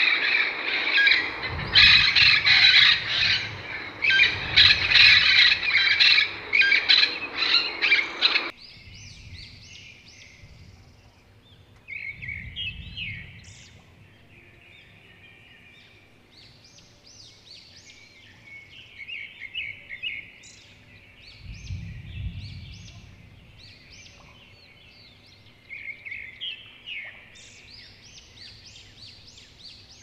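Parrots calling: loud, harsh squawks repeated in quick succession for about the first eight seconds, cutting off abruptly to quieter, higher chirps and chatter that come in scattered bursts.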